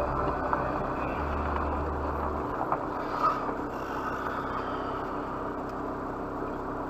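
Car running, heard from inside the cabin through a dashcam: steady engine and road noise as it slows onto a gravel lay-by, with a low drone that drops away about two and a half seconds in and a few light clicks.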